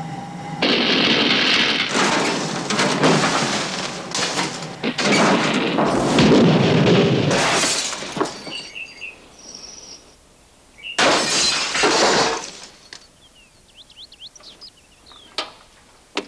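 Glass shattering and things crashing as a kitchen is wrecked: a long run of crashes lasting about seven seconds, a second loud burst about eleven seconds in, then only faint small clinks.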